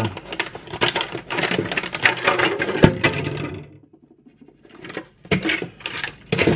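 Clear plastic parts bags rustling and crinkling as the kit's plastic body parts are handled. After a short quiet pause, a few sharp knocks follow near the end.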